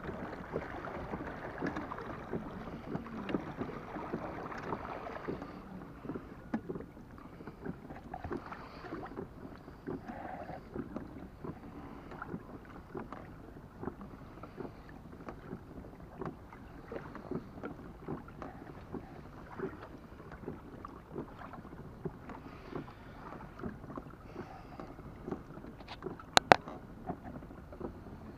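Water lapping and splashing against a sailing kayak's hull and rudder as it moves over calm sea, with many small ticks and wind on the microphone; louder for the first five seconds or so. Two sharp knocks close together near the end.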